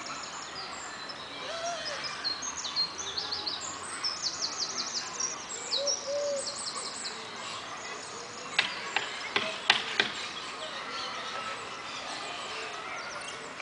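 Birdsong in the trees: quick, high, repeated chirping phrases, with a few short low coos between them. A cluster of sharp clicks or taps comes about nine to ten seconds in.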